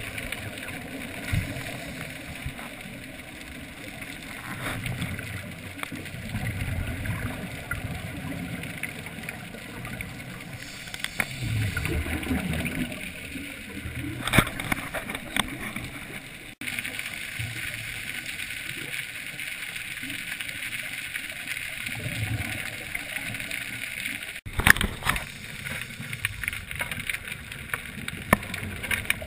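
Muffled underwater noise through a camera's waterproof housing on a scuba dive: divers' regulator exhaust bubbling and gurgling, swelling every few seconds with each exhaled breath.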